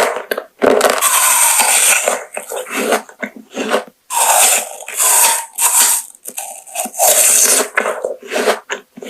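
Close-miked eating sounds: loud crunching and chewing in bursts of a second or two, with short pauses between bites.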